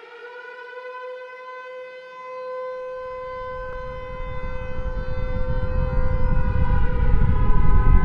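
A siren-like electronic tone held at one steady pitch opens an electro house soundtrack. From about three seconds in, a low rumbling build-up swells louder and louder under it.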